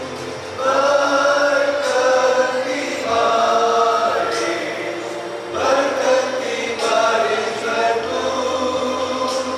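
Church congregation singing a hymn together in slow phrases of held notes.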